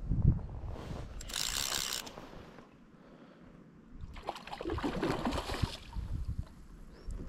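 Hooked rainbow trout splashing at the surface while being played on a fly rod, in two bursts: one about a second in and a longer one from about four seconds in. Wind on the microphone at the start.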